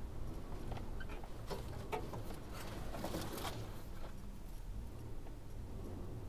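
Vehicle engine and drivetrain rumbling low inside the cab as it crawls along a wet dirt trail, with a cluster of light clicks and taps about two to three seconds in.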